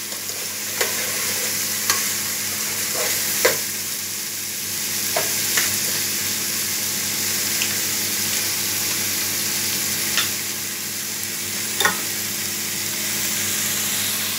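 Chopped vegetables sizzling as they fry in a steel pot while a metal spoon stirs them, the spoon clinking sharply against the pot about eight times.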